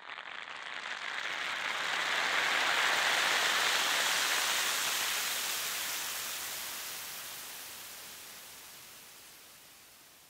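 Whoosh of swelling noise as an intro sound effect: it builds over the first two or three seconds, then slowly fades away.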